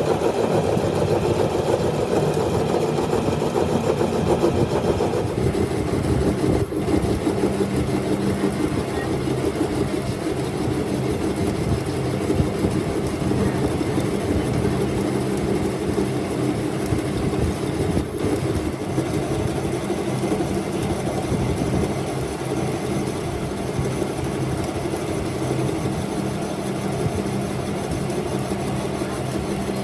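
Workshop machinery running steadily: a continuous motor hum with a noisy hiss over it, the upper hiss easing a little about five seconds in.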